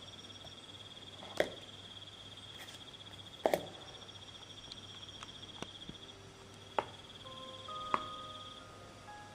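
Crickets trilling steadily in a night-forest ambience recording, the trill breaking off near the end. A few sharp light clicks and knocks sound over it, the loudest a quick double knock about three and a half seconds in.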